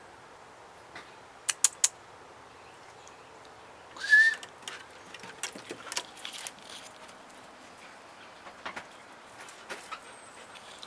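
Seven-month-old husky letting out one short, high-pitched whine about four seconds in, with scattered sharp clicks and taps before and after it.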